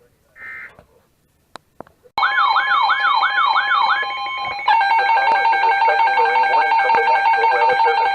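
NOAA weather radio alert alarm going off: after a short electronic beep and two clicks, a loud electronic tone starts about two seconds in. At first it is a warble sweeping up and down about two and a half times a second over steady beeping tones, then a bit past halfway it changes to a steady alarm tone.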